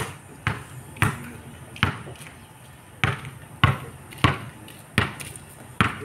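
A series of about nine sharp knocks, irregularly spaced half a second to a second apart, with a longer pause in the middle.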